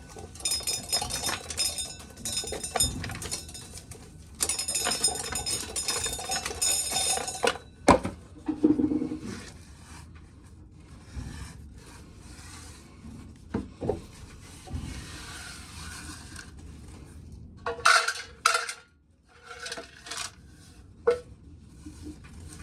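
Corn being shelled, the kernels rattling and clinking in two bursts of about three seconds each, followed by a few separate knocks and clicks.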